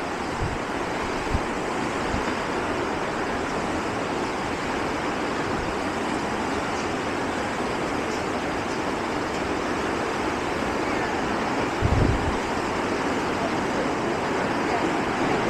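Steady rush of fast-flowing creek water in a rocky canyon, with a few low wind bumps on the microphone, the strongest about twelve seconds in.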